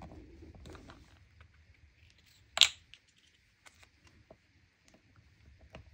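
Small clicks and taps of hard plastic and metal button parts being handled in a fabric cover button kit, with one sharp, louder click about two and a half seconds in.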